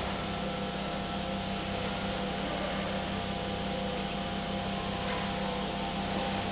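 Steady electrical hum: several held tones under an even hiss, with no strikes, stamps or shouts standing out.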